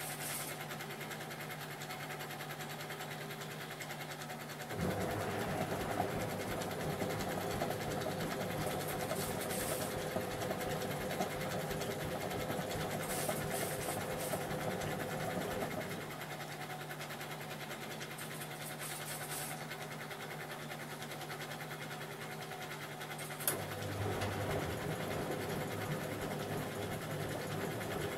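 1988 Wiatka 14 front-loading washing machine in its wash phase: the drum motor starts about five seconds in and turns the sudsy drum for about eleven seconds, stops, and starts again near the end. A low steady hum fills the pauses between turns.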